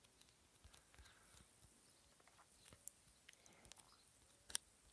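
Near silence with a few faint scattered clicks and one sharper click near the end.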